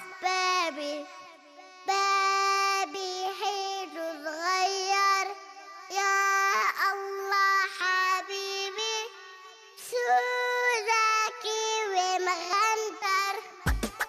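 A young girl singing a children's song in Arabic: long held melodic phrases with little or no backing. A beat with deep bass thumps comes in near the end.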